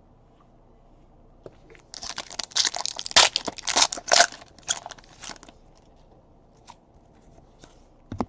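Plastic trading-card pack wrapper being torn open and crumpled: a burst of crinkling crackles lasting about three and a half seconds, then a few faint rustles as the cards are handled.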